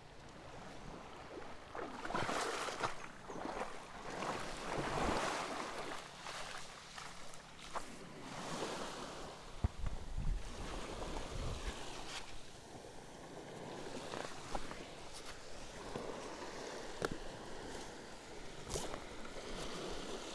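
Small sea waves washing up onto the shore, in surges that swell and fade every few seconds, with some wind on the microphone.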